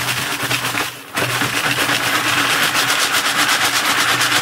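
Dirt, clay and small rocks rattling and scraping in a plastic classifier sieve as it is shaken back and forth on a 5-gallon bucket, sifting material for gold. It stops briefly about a second in, then runs on as a rapid, even rattle.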